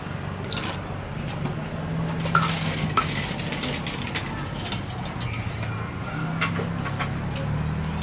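Metal spoon and ladle clinking and scraping against stainless steel bowls as chili dressing is scooped and a cockle salad is mixed, with scattered sharp clinks, most of them in the second half, over a low steady hum.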